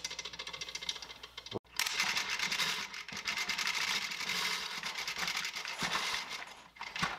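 Giraffe Tools 1/4-inch spring-retractable pressure washer hose reel turning, its latch ratchet clicking rapidly as the hose is pulled out and the reel winds. The clicking breaks off briefly about a second and a half in, then runs on.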